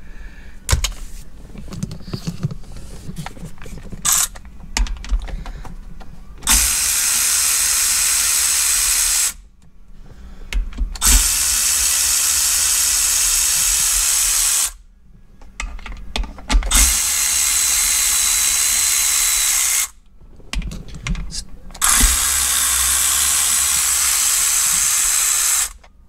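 Handheld cordless power driver with a socket extension running in four runs of about three to four seconds each, backing out the Hurst shifter's mounting bolts. Between the runs come clicks and knocks of the tool being handled.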